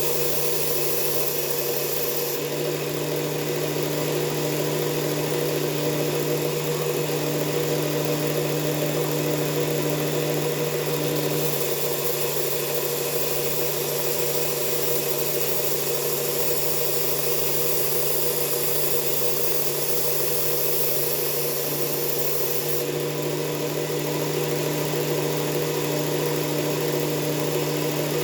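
Belt sander running with a steady motor hum while a knife blade is ground on its abrasive belt. The hiss of steel on the belt changes abruptly about 2, 11 and 23 seconds in as the blade meets or leaves the belt between passes.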